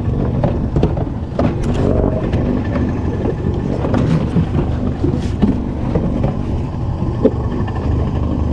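A small fishing boat's motor running with a steady low rumble, with scattered knocks and clatter on board.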